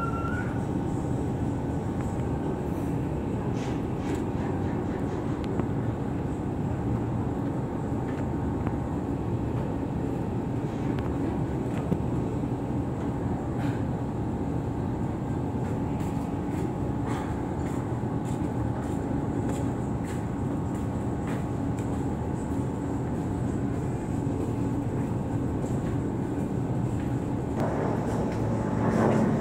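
Steady drone of a ship's engines, with a constant hum and the rush of wind and water, rising briefly in loudness near the end.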